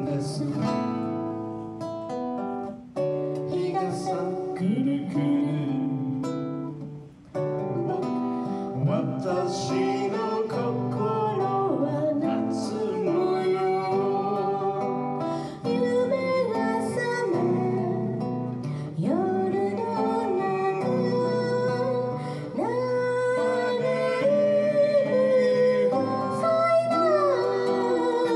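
A man singing a folk song into a microphone while playing an acoustic guitar.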